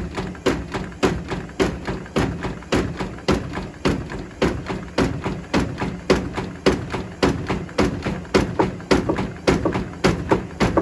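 Bricks tumbling and knocking inside the drum of a Hotpoint Smart Tech WMFUG742 washing machine on a wool wash, sharp thuds at about two a second over a steady low hum.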